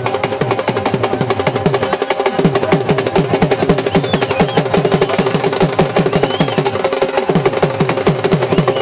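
Music of fast, even drumming, about five low strokes a second, each dropping in pitch, under a steady held tone.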